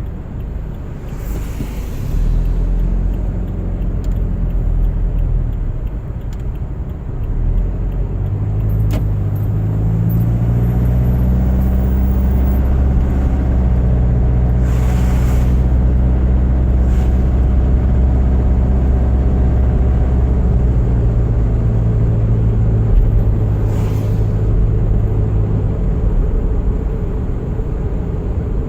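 Car driving on a winter road: a steady low engine and tyre drone that grows a little louder about eight seconds in and then holds steady, with three brief hissing swells.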